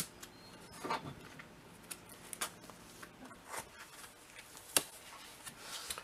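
Comic books in clear plastic bags being handled and slid across a cutting mat: soft rustling of the plastic sleeves with a handful of sharp ticks and taps.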